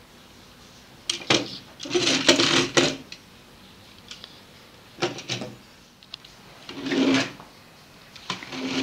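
Pull-back spring motor of a plastic building-block toy truck whirring and clicking in several short bursts as the truck is pulled back and let go on a wooden table, with clicks from the plastic bricks being handled.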